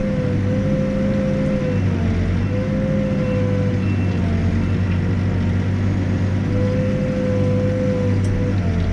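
Backhoe's diesel engine running steadily at work, with a whine whose pitch drops briefly three times as the machine loads up while digging.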